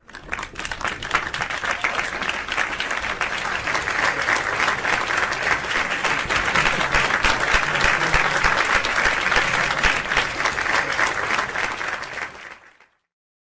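Audience applause: many people clapping together, rising quickly at the start, holding steady, then fading out near the end.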